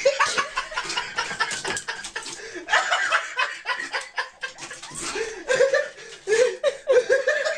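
A person laughing in short repeated bursts, louder and quicker in the second half.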